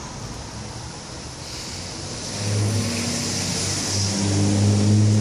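Road traffic noise with a motor vehicle's engine droning nearby, getting louder through the second half.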